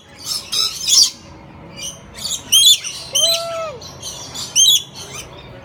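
A small bird chirping: a series of short, high, hooked chirps coming every second or so, with a lower drawn-out call about three seconds in.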